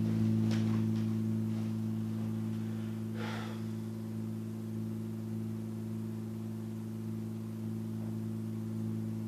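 Low, sustained drone chord of soundtrack music, held steady, with a faint airy swish about three seconds in.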